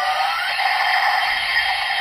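Bootleg Kamen Rider Build Driver toy belt playing a recorded electronic sound effect through its small built-in speaker: a brief rising sweep at the start, then a steady, even hissing whir.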